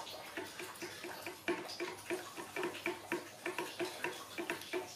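Young macaque chewing soft food with its mouth open: wet smacking clicks, about four a second.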